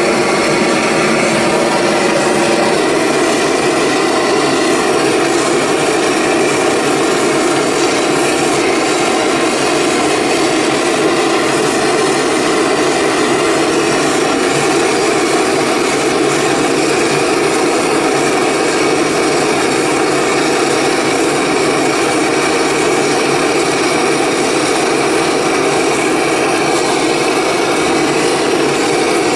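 Gas brazing torch burning with a steady roar as it heats copper and bronze pieces for silver soldering.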